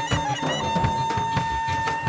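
Free-improvised jazz trio: a clarinet holds a long, high note, breaking off just after the start and resuming about a third of the way in, over a busy drum kit and electric bass.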